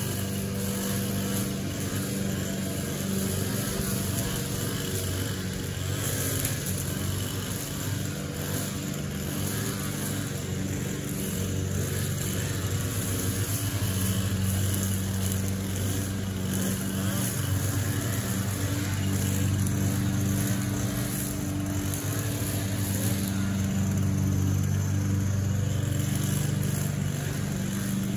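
Small gas engine of a string trimmer running steadily, its pitch easing off and picking up again as the throttle changes.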